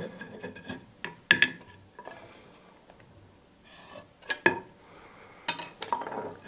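A steel square handled against a wooden board on a workbench: a handful of sharp metallic clicks and taps, with faint scraping between them.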